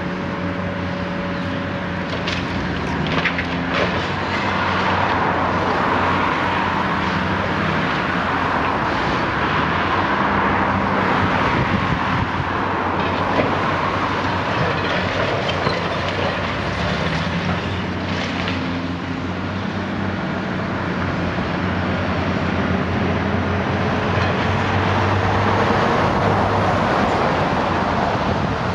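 High-reach demolition excavator working on a brick building: its diesel engine runs steadily under load while the attachment on the long arm breaks into the walls, with crunching masonry and a few sharp knocks. A faint whine rises slowly near the end.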